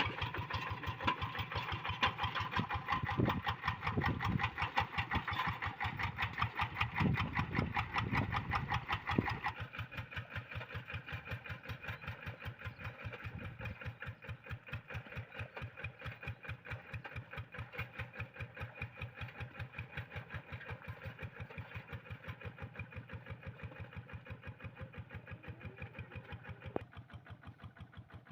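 Kubota RD85DI single-cylinder diesel engine of a Quick G1000 hand tractor running with a fast, even chug. It is louder for the first nine seconds or so, then drops to a quieter, steady run.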